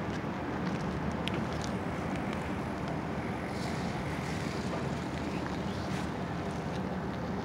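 Diesel engine of a hydraulic excavator running steadily during demolition work, with a few faint clinks of debris.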